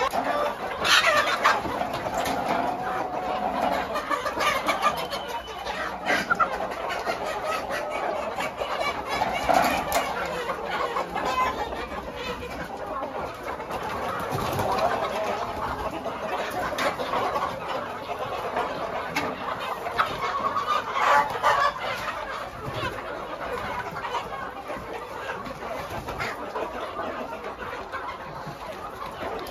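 A large flock of domestic hens clucking and calling continuously, many voices overlapping, with scattered short clicks among them.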